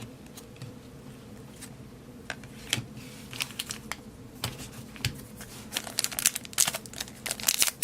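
Baseball cards being handled, with a pack wrapper crinkling: scattered light clicks and rustles that grow busier over the last couple of seconds.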